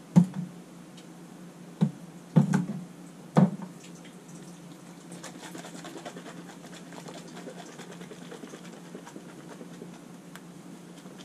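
Kitchen handling sounds: four sharp knocks of things being set down in the first few seconds, then a faint steady patter over a low hum.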